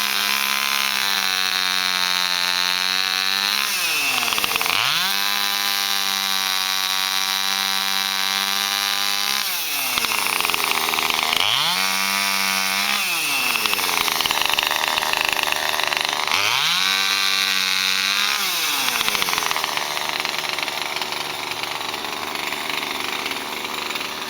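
Two-stroke chainsaw cutting up a fallen peppermint tree. Four times it revs up to a high, held whine and drops back between bursts.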